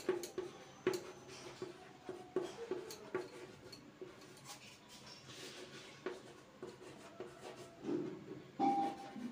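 Chalk writing on a green board: a run of short, irregular taps and scratchy strokes as letters are written, with brief squeaks. The strokes are louder near the end.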